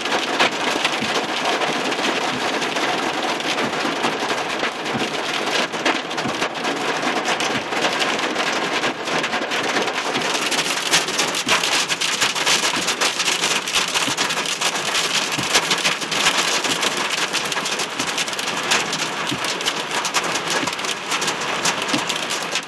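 Hailstones pelting a vehicle's windshield and body, heard from inside the cab: a dense, steady clatter made of countless small sharp hits.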